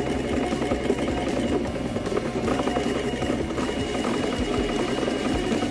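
Stepper motors of a home-made CNC conversion of an Etch A Sketch-style 'Magic Screen' toy, turning its drawing mechanism through belts and pulleys while the stylus traces wavy sine lines: a rapid, busy whir with many small stops and reversals, and a faint steady high whine joining about halfway through.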